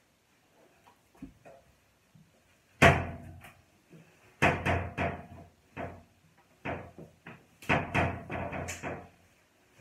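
Irregular bursts of knocks and thumps in a small tiled bathroom as a wet dog is handled and moves about. A single hit comes about three seconds in, more follow in quick groups, and the densest run of knocks comes near the end.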